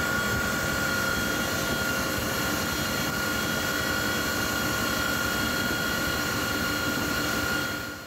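Firefighting helicopter in flight, heard from on board. It makes a dense, steady rushing noise with a constant high whine through it, and fades out near the end.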